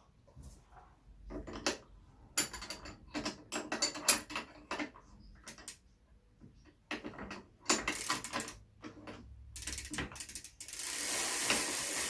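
Ratcheting clicks in short bursts as the new reverse-threaded left pedal is screwed into a BMX bike's crank arm. Near the end the clicks give way to a steady hiss.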